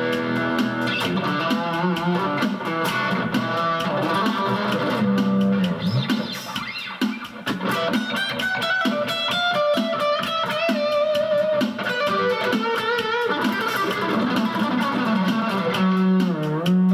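Electric guitar playing a melodic lead line with the bridge-position Alnico pickup, with a few bent and wavering notes near the end.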